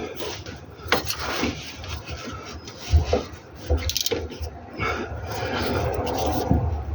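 Irregular scraping and rubbing from hand work on car parts, with scattered sharp knocks and a longer scrape in the second half.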